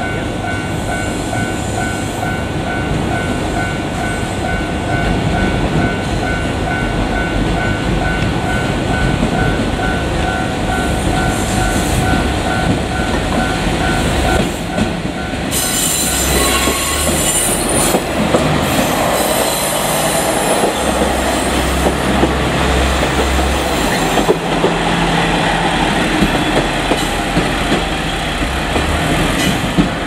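JR Kyushu KiHa 47 diesel railcars running past at low speed, their diesel engines running and wheels clattering over rail joints. A level-crossing warning bell rings steadily through the first half and stops about halfway.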